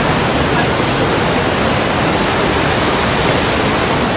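The Rhine Falls rushing: a loud, steady noise of falling water.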